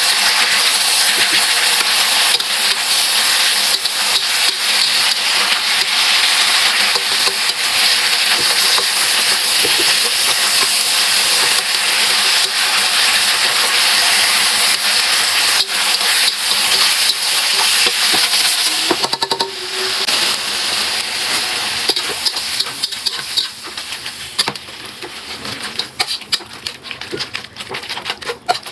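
Food sizzling as it fries in a hot pan, with stirring. About two-thirds of the way through, the sizzle drops off, leaving scattered crackles and pops.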